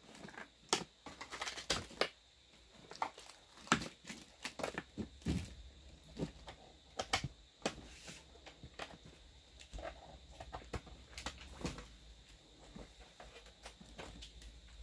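Scattered light clicks, taps and rustles of hands handling a USB cable and plugging it into a desktop computer's USB port, at irregular intervals.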